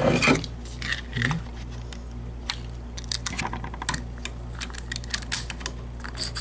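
Small metal clicks and clatter from a Master combination padlock being handled and set into a mount, with a quick run of clicks about three seconds in, over a steady low hum.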